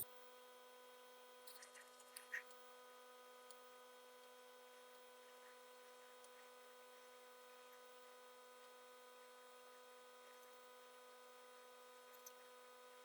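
Near silence with a faint steady electrical hum, and a couple of faint ticks about two seconds in.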